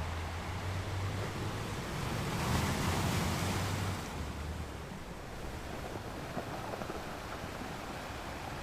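Ocean waves washing on the shore. One wave swells louder about two and a half seconds in, then ebbs away about a second and a half later over a low rumble of surf.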